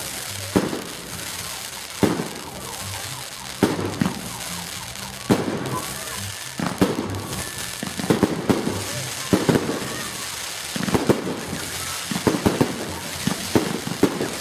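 Aerial fireworks shells bursting with sharp bangs, roughly one every second and a half at first, then coming faster in quick clusters of smaller bangs from about eight seconds in.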